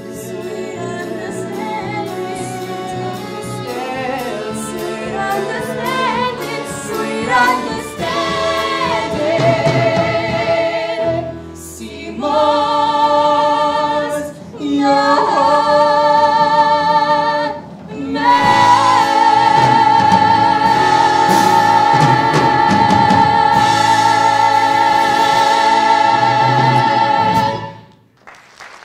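A musical theatre duet sung live on stage by a man and a woman with a backing chorus and accompaniment, building to its final phrase: one long held note with vibrato through the last third that cuts off just before the end.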